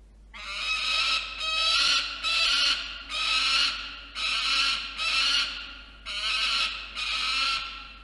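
Male peregrine falcon giving a series of about nine loud, harsh, drawn-out calls, each around half a second long.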